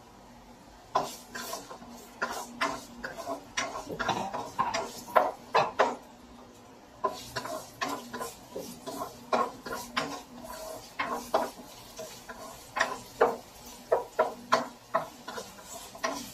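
Spatula scraping and knocking against a nonstick wok as ginger strips are stirred in hot oil, in quick irregular strokes starting about a second in.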